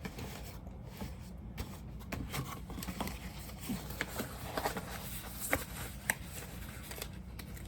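Light handling noises: scattered soft rustles and small clicks over a low steady hum.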